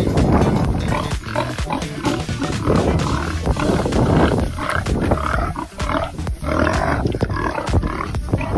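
A sow grunting loudly in repeated, irregular bursts, with music playing underneath.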